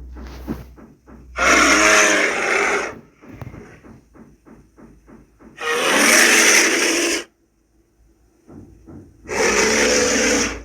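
Bear roaring three times, each roar about a second and a half long. Quieter, rapid clicking or huffing fills the gaps between roars.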